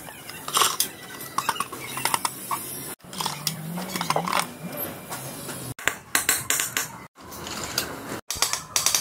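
Small metal engine parts and tools clinking and clattering against an aluminium engine crankcase as it is worked on by hand, in irregular short clinks.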